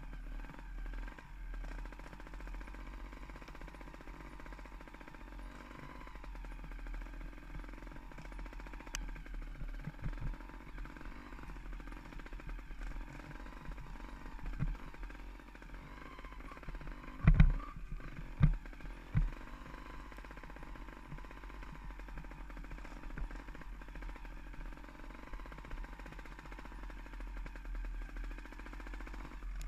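Mountain bike rattling and clattering continuously over a rough, rooty forest trail, heard through a rider-worn action camera along with a low wind rumble. A few heavy knocks from bumps stand out about seventeen to nineteen seconds in.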